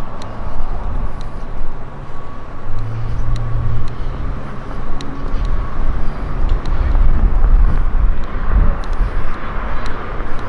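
Vehicle running, heard as a loud uneven low rumble, with scattered light clicks and a brief steady hum about three seconds in.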